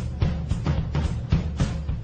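Music with strong bass and a steady drum beat of about four beats a second.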